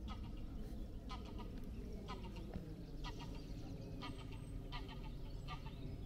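Two large birds flying over a canyon, giving short calls again and again, about one or two a second, over a steady low background rumble.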